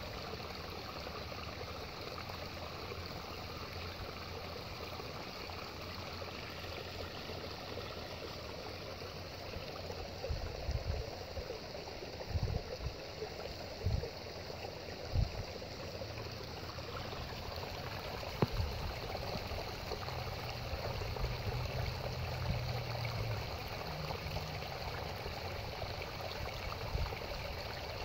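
Small waterfall: creek water trickling and splashing steadily over a rock ledge. A few short low thumps come around the middle.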